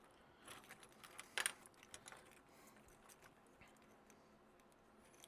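Faint scattered clicks and taps of plastic being handled: the jointed links of a 3D-printed dragon and a nylon zip tie being fitted around its neck, the loudest click about a second and a half in.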